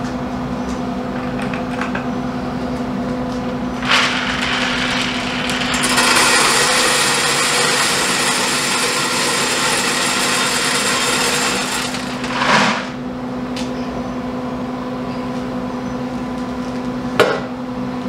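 Wood pellets poured from a bucket into the hopper of a Pit Boss vertical pellet smoker: a dense rattling rush lasting about six seconds, with a knock before and after it and a sharp click near the end, over a steady hum.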